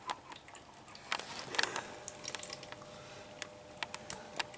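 Quiet draining of rust-remover liquid from a moped fuel tank into a plastic bottle: a few soft, scattered drips and taps, with a faint steady hum from about two seconds in.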